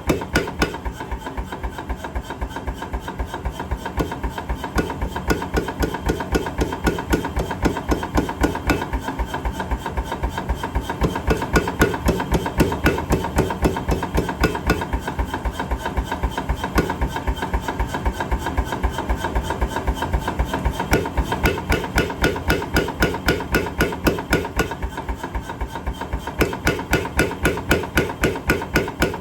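Mechanical power hammer striking hot metal in a fast, even rhythm of several blows a second.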